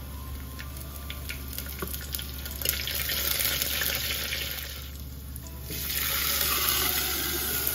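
Kerala-style tempering sizzling in hot oil in a clay pot: curry leaves and onion spitting as they are added and stirred with a metal spoon. From about six seconds in, potato curry is poured in from an aluminium pot and the sizzle turns to a louder hiss as the liquid hits the hot oil.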